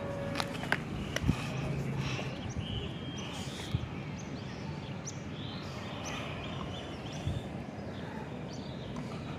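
Birds calling in short scattered notes over a steady outdoor hiss, with a few sharp clicks in the first second and a half.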